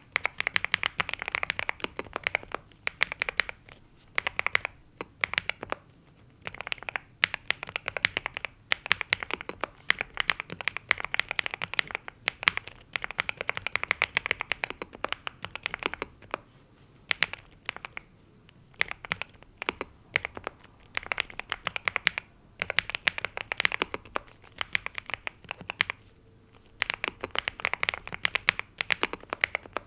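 Typing on a NuPhy Gem80 mechanical keyboard with NuPhy Mint linear switches and double-shot PBT mSA keycaps: rapid key clacks in runs of a few seconds, with short pauses between them.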